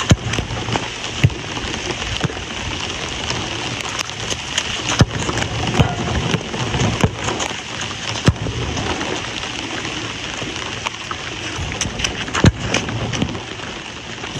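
Steady rain hiss with the sharp thud of a football being struck, once right at the start and again about eight seconds in, among a few other sharp knocks.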